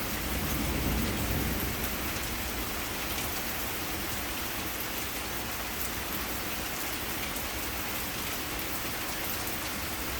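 Heavy rain falling steadily, an even hiss of drops on surfaces. A low rumble fades out over the first two seconds.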